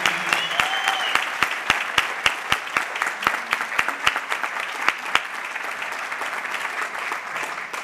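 Audience applauding, with loud, evenly spaced claps about three or four a second standing out until about five seconds in. The applause then thins and fades near the end.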